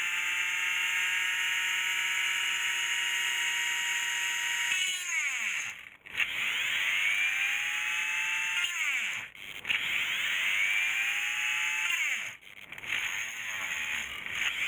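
A small electric motor running with a high whine. About five seconds in it cuts out and winds down in pitch, then speeds up again; it winds down and restarts twice more, near nine and twelve seconds.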